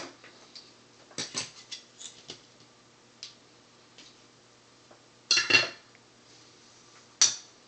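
A printed circuit board and a soldering iron being handled on a workbench: scattered clicks and light clatters of hard objects set down and picked up, the loudest cluster about five and a half seconds in and a last sharp click near the end.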